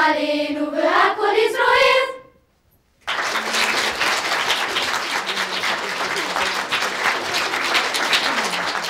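Singing that ends on a long held note about two seconds in; after a moment's pause, an audience applauds steadily to the end.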